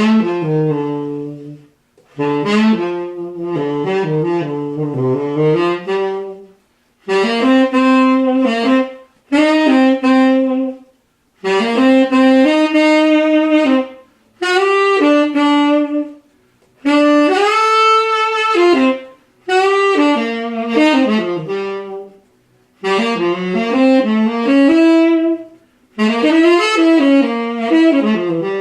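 Selmer Mark VI tenor saxophone played solo in short jazz phrases separated by brief breaths, moving through the low and middle registers with a bright, rich tone.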